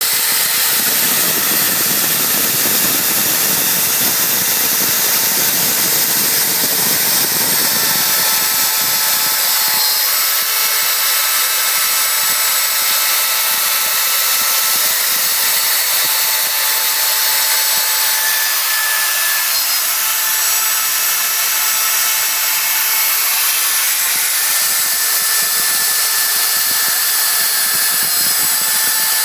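CNC machine spindle running at speed while its bit cuts out a heart shape: a steady, loud, high-pitched whine with cutting noise, heavier for the first eight seconds or so and lighter after.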